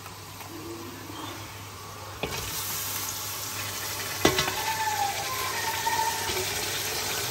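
Tomato wedges dropped into hot oil and fried onions in an aluminium pot start sizzling about two seconds in, followed by a steady frying hiss with a sharp knock against the pot a couple of seconds later. This is the tomato stage of frying a biryani masala.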